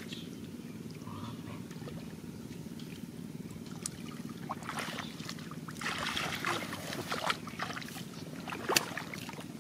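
Shallow muddy water sloshing and splashing as a person wades and works a woven bamboo basket through a flooded rice field, in irregular bursts that grow busier over the second half, with a sharp splash or knock near the end. A steady low rumble lies underneath.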